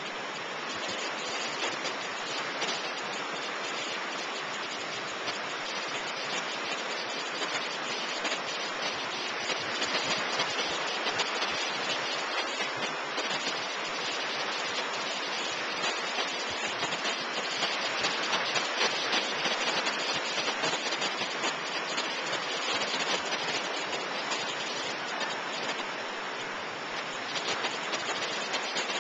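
Ocean surf breaking and washing in: a steady rushing hiss with a fine crackle of foam.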